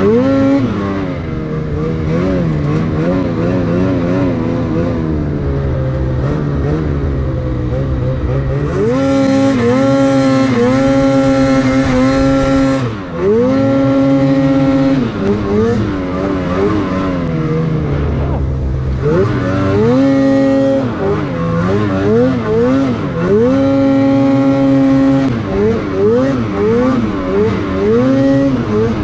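Two-stroke snowmobile engine (Lynx Boondocker RE 3700's 850 E-TEC) heard from the rider's seat under way in deep snow. It runs fairly evenly at first, revs up and holds high several times, then through the last third the throttle is blipped over and over so the engine note rises and drops in quick succession.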